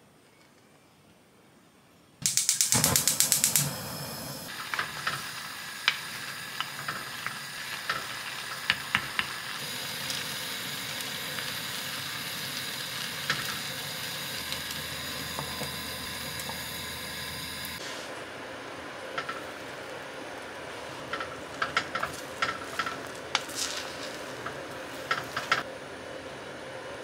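Gas stove burner clicking rapidly as it is lit, then the steady hiss of the flame under granite stone pots of rice boiling down, with scattered pops and crackles. Near the end, light clicks and taps.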